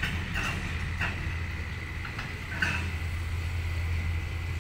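Diesel locomotive engine running with a steady low hum, with a few short clicks over it.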